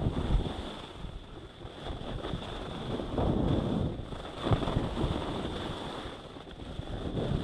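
Wind rushing over an action camera's microphone while skiing downhill at about 15 mph, with swells of ski edges scraping over packed groomed snow as the skier turns, about three times.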